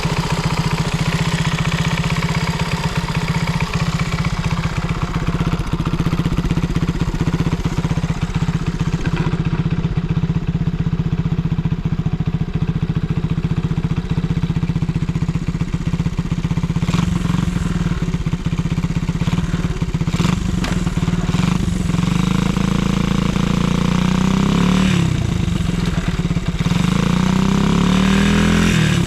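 Honda Monkey Z50J's single-cylinder four-stroke engine, bored up to 88 cc with a Hayashi top end, idling steadily and then revved up and back down a few times near the end. It runs without abnormal noise.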